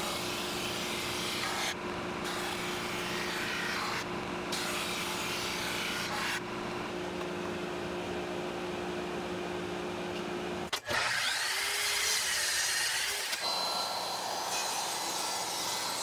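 Drum sander running steadily, its drum sanding a figured-wood tray that is fed through on a tapered shim, taking a light pass to put a slope on the top. About eleven seconds in the sound changes abruptly to a different machine noise with a wavering whine, then a steadier whine near the end.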